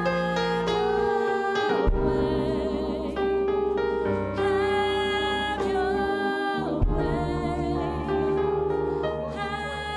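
Slow worship music on an electric keyboard: held chords over a low note that changes every couple of seconds.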